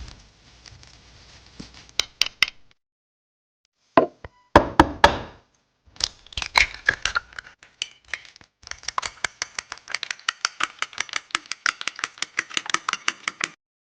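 Small knife chopping on a miniature cutting board: scattered knocks and clatter at first, then, a little past halfway, a long, rapid, even run of chopping strokes.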